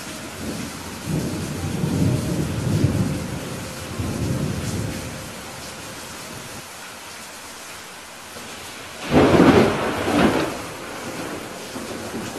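Steady rain falling, with a low rumble of thunder over the first few seconds and a louder, sharper thunderclap about nine seconds in.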